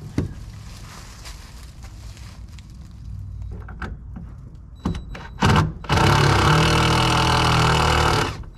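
Cordless drill backing screws out of the underside of a wooden brooder: a short burst of the motor about five and a half seconds in, then a steady run of a little over two seconds that stops near the end.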